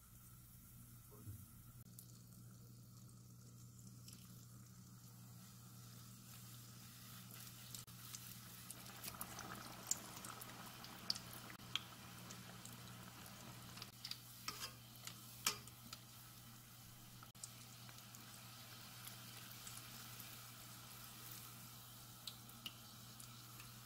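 Churro dough piped around a sausage frying in oil at about 170°C: a faint sizzle that builds about a third of the way in, with scattered crackling pops. A steady low hum runs underneath.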